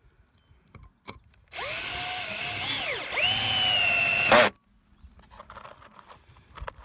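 DeWalt cordless drill driving a 2.5-inch deck screw through a steel deck bracket into a wooden beam: the motor whines for about three seconds, its pitch dipping about halfway as the screw bites, then picking up again before it stops suddenly as the screw seats.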